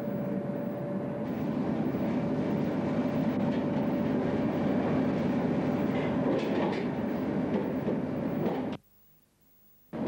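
Steady mechanical drone of a ship's machinery heard in the galley, with a faint clatter of kitchen work. Near the end the sound cuts out abruptly for about a second and then returns.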